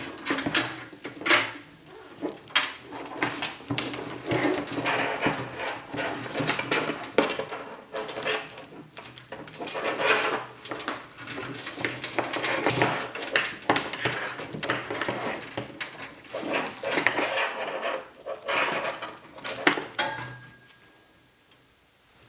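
Continuous rustling, scraping and irregular clicks and knocks of hands handling the power supply's daisy-chained SATA power cables and their plastic connectors inside a PC case, dying away near the end.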